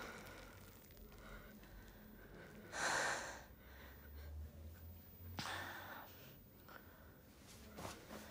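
A person breathing: two audible breaths, one about three seconds in and another about halfway through, over a faint low hum.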